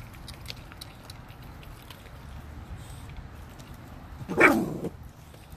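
Renascence Bulldogge puppies chewing frozen raw fish, with faint scattered crunches and clicks. About four seconds in, one puppy gives a single short, loud vocal sound lasting about half a second.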